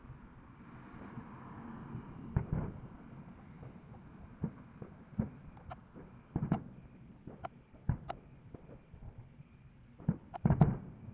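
Fireworks going off at a distance: a dozen or so irregular bangs and pops, with a quick cluster of louder ones near the end.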